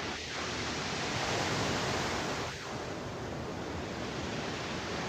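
Sea surf, a steady rushing noise that swells a little about a second in and eases off again.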